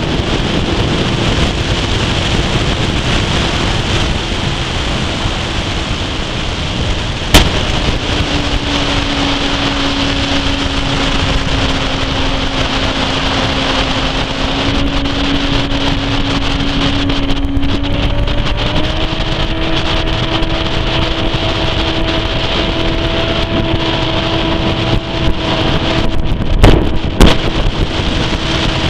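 A small boat's outboard motor running under way, with wind buffeting the microphone and water rushing past the hull. The engine note drops slightly a few seconds in and rises again about two-thirds of the way through; a sharp knock comes once early on and twice more near the end.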